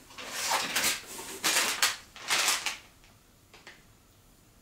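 Craft packaging being handled and rustled in three short bursts, then a couple of faint clicks near the end.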